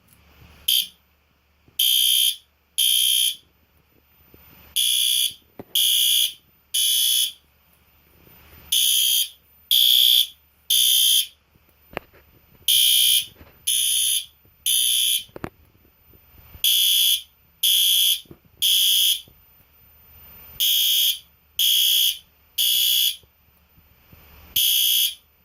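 System Sensor SpectrAlert P2R fire alarm horn sounding the temporal code 3 evacuation pattern. It gives three loud, high-pitched half-second blasts a second apart, then a pause of about a second and a half, repeating.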